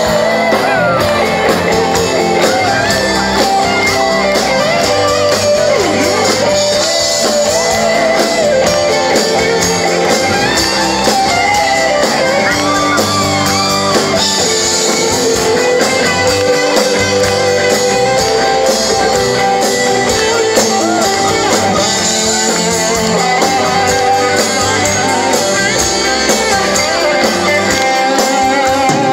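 Rock band playing live, with electric guitars, drums and lead vocals, heard from within the audience.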